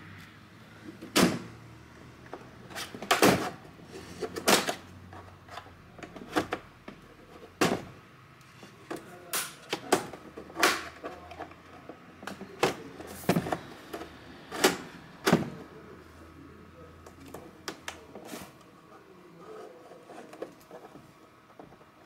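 Plastic retaining clips on the screen edge of a Lenovo IdeaCentre AIO 3 all-in-one snapping loose as a plastic pry tool works along the seam: about a dozen sharp clicks at uneven intervals, fading to faint handling near the end.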